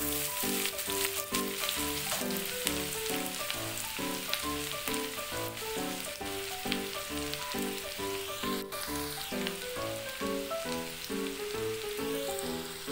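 Hot oil sizzling steadily as chopped pieces fry in a nonstick kadai, with background music of quick, evenly paced notes playing over it.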